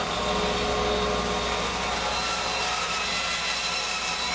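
Bandsaw running steadily, its blade cutting through a seasoned cedar branch.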